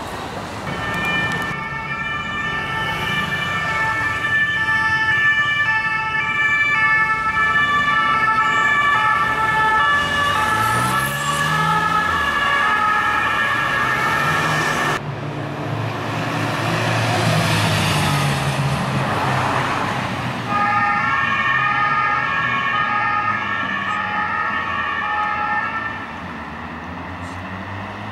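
French two-tone emergency siren, alternating a high and a low note, with an engine revving up under it. The siren cuts off abruptly midway, leaving loud traffic noise, then comes back for several seconds before it stops near the end.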